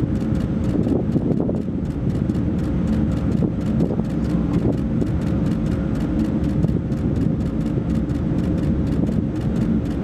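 Steady low rumble with wind-like noise and a faint constant hum, even throughout with no distinct impacts.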